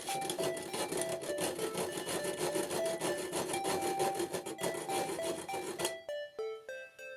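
Hand tool rasping through the bronze of a Paiste 2002 crash cymbal in rapid repeated strokes, the hand-cut repair of a cracked cymbal without power tools. The strokes stop about six seconds in.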